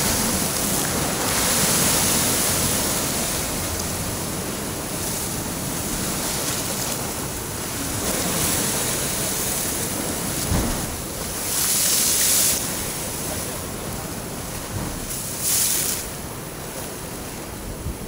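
Heavy sea waves surging and breaking into foam against the rocks and concrete at the foot of a seawall: a continuous rush of surf that swells and eases. There are louder surges about twelve and sixteen seconds in.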